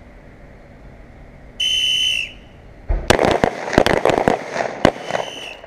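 A referee-style whistle blast about a second and a half in starts a timed course of fire. A rapid string of handgun shots follows for about two seconds, and a second short whistle blast ends the string.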